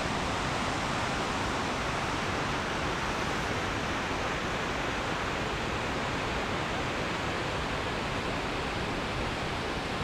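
Steady, even rushing noise with no distinct events and no change in level.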